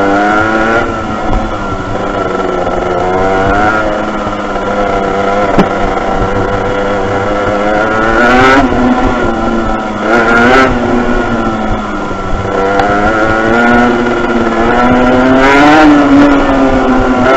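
Yamaha TZR 50's 50 cc two-stroke single-cylinder engine, heard from on board while riding, revs climbing and dropping back several times as the throttle opens and closes.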